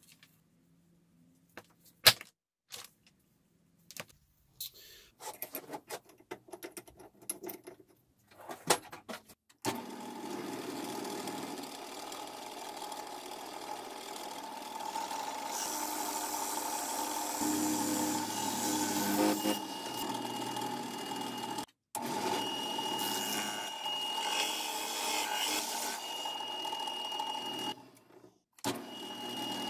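Scattered knocks and clicks as the wooden board is handled and set on a drill press table. From about ten seconds in, the drill press runs steadily as its bit bores into the hardwood board, with a high whine joining in the second half. The sound cuts off suddenly twice.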